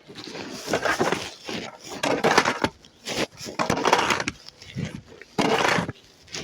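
Repeated crunching in snow, about once a second, each crunch lasting around half a second.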